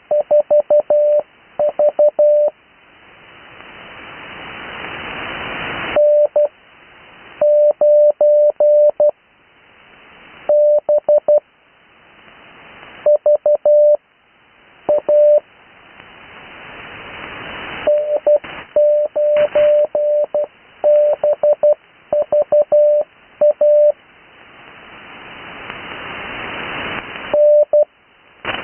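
Morse code (CW) practice sent with Farnsworth spacing. A steady beeping tone is keyed into quick runs of dots and dashes, and each character is followed by a long pause. Radio band hiss rises in the longer pauses and cuts off when the tone returns.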